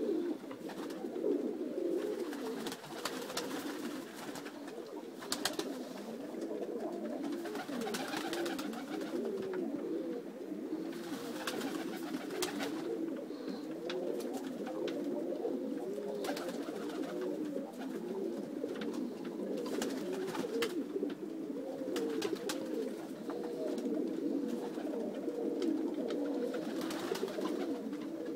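Many domestic pigeons cooing together in a loft, a continuous overlapping chorus of low, wavering coos.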